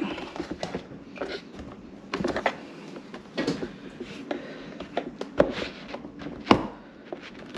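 Flat screwdriver prying at the plastic retaining tabs of a dishwasher door's control panel: scraping with scattered plastic clicks and knocks, and two sharper snaps about five and a half and six and a half seconds in as a tab comes free.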